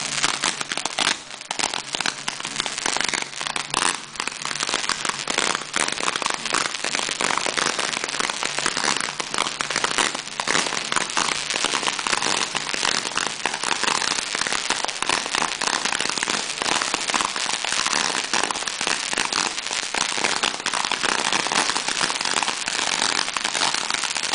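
Fireworks and firecrackers going off at close range: a dense, continuous crackle of many rapid small bangs with no let-up.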